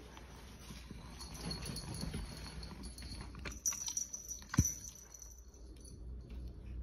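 Knocks and light handling noise during play with a wand cat toy, with faint high ringing and one sharp thump about four and a half seconds in.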